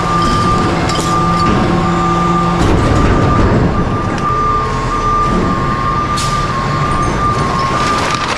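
Garbage truck's engine running with a steady drone, under a high warning beep that repeats about once a second.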